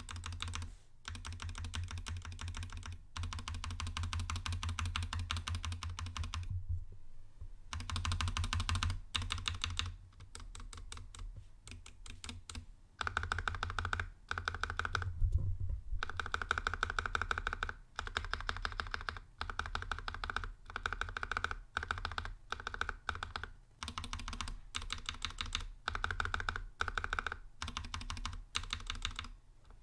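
Rapid, repeated key presses on a Matrix hot-swap mechanical keyboard, played to let its stabilized keys be heard: a stock stabilizer, clipped and lightly lubed, on the Enter key against a lubed, clipped Everglide stabilizer. The clicks come in runs with short pauses. From about halfway on, the keystrokes have a brighter, higher-pitched clack.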